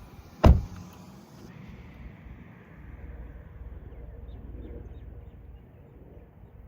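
A car door shut once with a heavy thump, followed by a low steady rumble.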